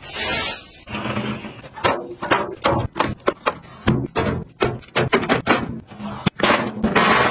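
Clear plastic wrap crinkling as it is pulled off a plastic storage cart, followed by a run of sharp knocks and clunks from the slotted plastic baskets and the aluminium drink cans set into one. A second burst of rustling comes near the end.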